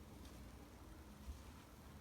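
Near silence: faint room tone with one soft tick a little after a second in.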